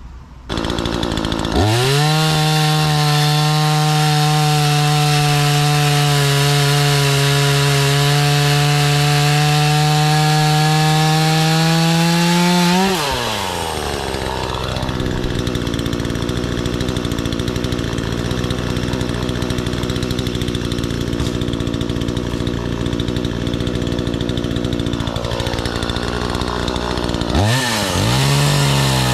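46cc two-stroke petrol chainsaw (Kingfisher FPCSP46-2) running at high revs for about twelve seconds, its pitch creeping up slightly before it drops back to a steady idle. Near the end it revs up again as the chain goes into a log.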